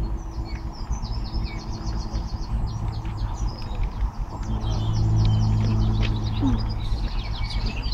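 Wild birds singing, with many quick chirping notes in short trills, over a low steady hum that swells around the middle.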